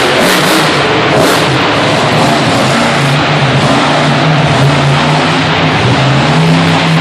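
Monster truck engine revving hard and unevenly through a freestyle run, with a burst of noise right at the start as the truck jumps a row of crushed cars.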